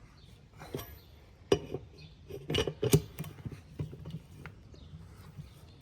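Cross lug wrench clinking on the wheel's lug nuts as they are snugged up: a handful of sharp metal clicks and knocks, the loudest about a second and a half and three seconds in.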